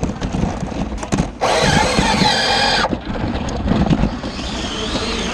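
Electric motors on an FRC competition robot whine for about a second and a half, starting and stopping sharply, as its intake wheels pull in a power cube. A steady din of arena noise runs underneath.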